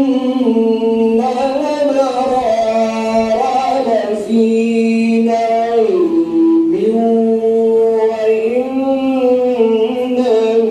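A qari's solo Quran recitation in Arabic: one man's voice chanting in long, held, ornamented notes, with short breaks between phrases.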